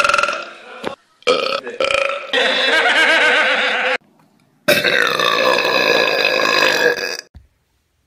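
Loud human belches: a short one at the start, two quick ones, then a long belch of nearly two seconds, and after a brief pause another long, drawn-out belch of about two and a half seconds whose pitch falls partway through.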